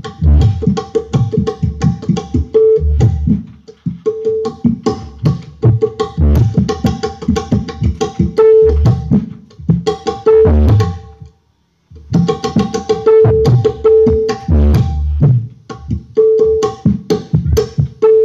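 Music with hand drums and a busy percussive beat, played back through a two-way PA loudspeaker system for a sound check. The music stops briefly about eleven seconds in, then resumes.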